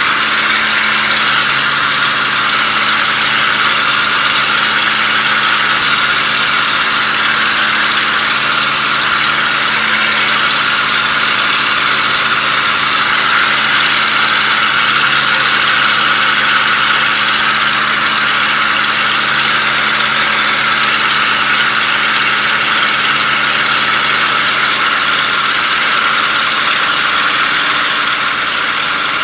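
P-51 Mustang's liquid-cooled V-12 engine and propeller running steadily in flight, heard from inside the cockpit as an unbroken loud drone with a strong steady hiss over it.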